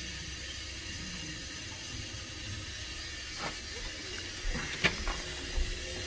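Steady hiss of water running into a newly installed steam boiler through its fill line as it fills toward its working water level, with a few sharp clicks and knocks in the second half.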